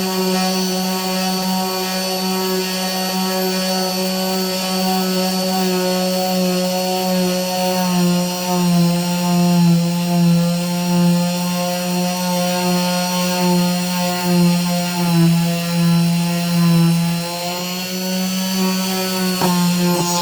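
Chicago Electric rotary tool running steadily with a diamond bit grinding through a citrine crystal, the motor's hum and high whine wavering slightly as the bit is pressed and rotated. It switches off and winds down at the very end.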